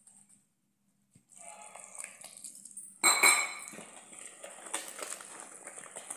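Metal whisk stirring and scraping cake batter in a plastic bowl, starting about a second in. About three seconds in, a sudden loud, squeaky sound rises above the scraping.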